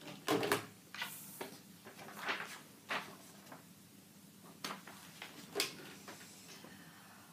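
Handling noise at a desk telephone: a series of clicks and knocks from its plastic handset being lowered and later lifted, the loudest about half a second in and again after five seconds, with a short rustle of paper about a second in.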